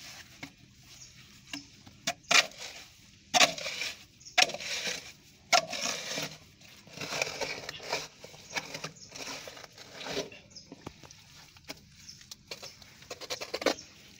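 Irregular scrapes, knocks and crunches as sludge and tangled roots are scraped and scooped out of a narrow manhole with a flat metal plate and by hand.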